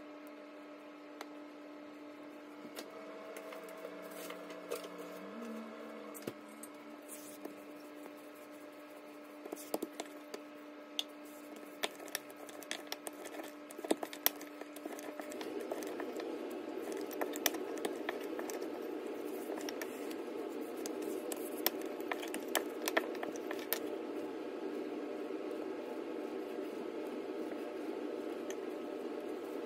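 Dough being pressed and rolled out by hand on a stone countertop: soft squishy handling with scattered sharp taps and clicks, over a steady low hum. About halfway through, a steady low rushing noise comes in and stays.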